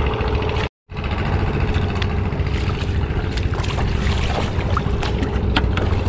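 Engine running steadily: a low rumble with a constant hum. It cuts out for a moment just under a second in, and a few sharp clicks come near the end.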